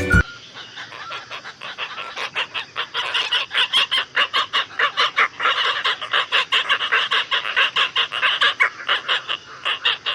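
Asian openbill storks calling: a long run of rapid, harsh notes at several a second.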